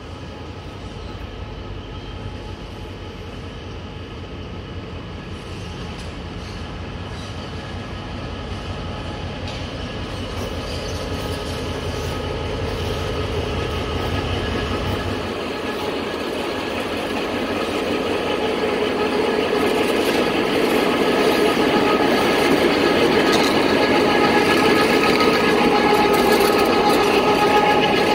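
Diesel locomotive approaching slowly and drawing alongside, growing steadily louder. A deep low rumble cuts off about halfway through, leaving the engine's running note and several thin steady high tones that strengthen as it comes close.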